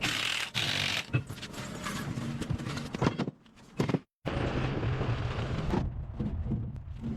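Irregular clicks and knocks of hand-tool work on metal, with an abrupt cut to silence about four seconds in.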